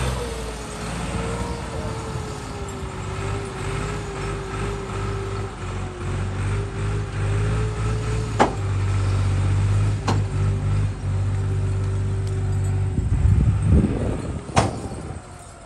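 Diesel farm tractor engine labouring steadily as it hauls a heavily loaded brick trolley through mud, its note dipping slightly at first and then holding. A few sharp knocks sound along the way, and the engine grows fainter near the end as the tractor moves off.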